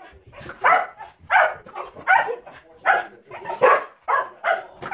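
Dogs barking repeatedly at a quick, steady pace of about two barks a second: excited play barking while they jump at a balloon.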